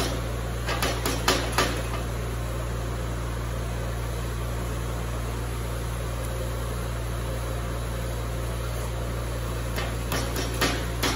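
An improvised rod in a stick-welder electrode holder tapped and scratched against a steel plate in a run of sharp clicks during the first two seconds and again near the end: attempts to strike an arc that does not take. A steady low hum runs underneath.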